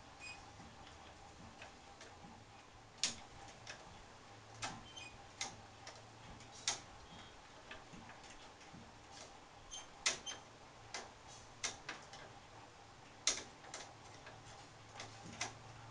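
Irregular small clicks and taps of a screwdriver and fingers on the plastic and metal parts of an opened Canon iR3300 photocopier, as a plastic locking part is worked loose. The clicks come at uneven intervals, with a few sharper ones standing out.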